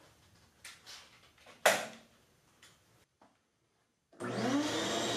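A few knocks and one sharp clack, then a shop vac motor starts, rising in pitch as it spins up and settling into a steady run.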